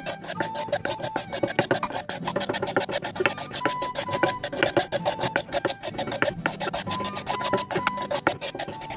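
A knife blade scraping along a wooden pole-arm shaft in quick, short strokes. Background music with short held notes plays underneath.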